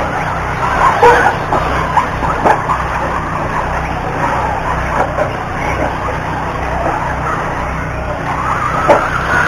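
Electric 1/8-scale RC truggies racing on a dirt track: brushless motors whining up and down in pitch as they throttle, with tyre noise and a few sharp knocks. A rising whine builds near the end.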